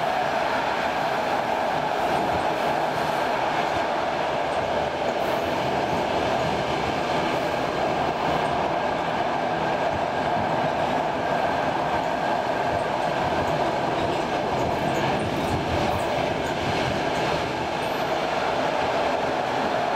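Steady running noise of a Saltsjöbanan Class C10 electric commuter train cruising, heard from inside the car: an even rumble of wheels on rail with a constant hum. Faint clicks come now and then.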